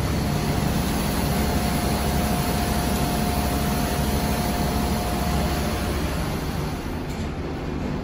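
Elevator car travelling in its shaft: a steady rumble and hum of the moving cab, with a steady whine that stops about six seconds in.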